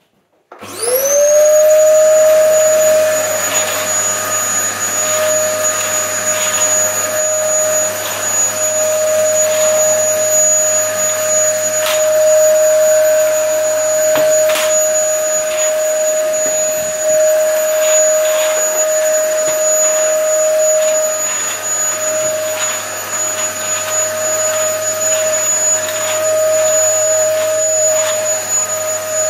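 Dyson DC08 cylinder vacuum cleaner switched on: its motor whine rises quickly and levels off within a second, then runs steadily as the floor head is pushed over a tiled floor, with occasional clicks.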